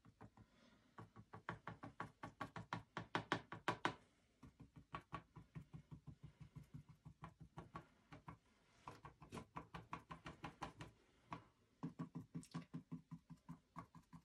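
Faint quick tapping of a small paintbrush dabbing paint onto a flat canvas panel, about six taps a second, in runs broken by short pauses.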